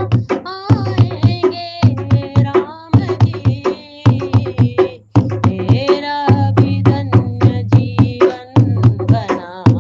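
Hindi devotional song (bhajan) to Ram: a melody sung over a steady hand-drum beat, with a brief break about five seconds in.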